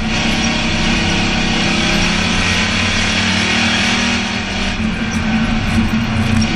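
Race car engine running hard under racing load, heard from inside the cockpit over heavy road and wind noise. The engine sound dips briefly about four seconds in, then comes back up.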